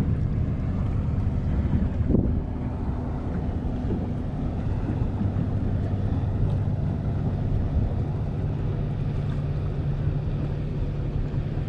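Small fishing boat's outboard motor running steadily, a constant low hum, with wind buffeting the microphone.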